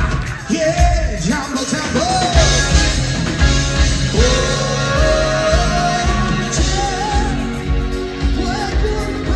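Live band playing an upbeat song: a singer over electric guitar, keyboard, bass and a steady drum beat.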